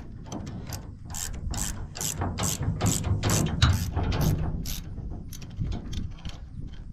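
Hand ratchet wrench clicking as a replacement shear bolt is tightened, with evenly spaced clicks about two or three a second that thin out towards the end. The old bolt sheared off on buried concrete, breaking as designed to protect the gearbox.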